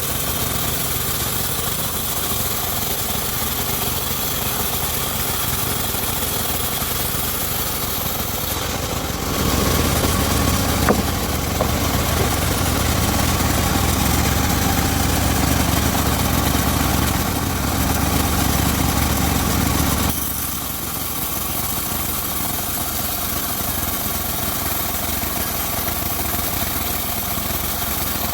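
Home-built circular saw rig running steadily with a machine hum. About nine seconds in it turns louder and deeper for about ten seconds, then eases back to its lighter running sound.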